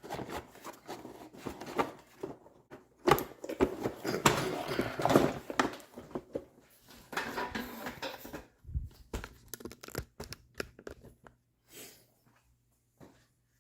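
Hand disassembly of an electric pressure washer's housing: irregular clicks, knocks and scraping of a screwdriver, screws and cover parts being worked loose, thinning out to a few odd clicks near the end.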